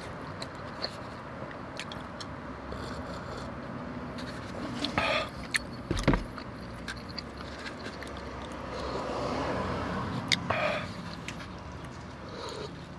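Close-up eating sounds of birria tacos and consomé: small wet clicks and smacks, and short slurps about five and ten and a half seconds in. A sharp thump about six seconds in, over a steady low background hum.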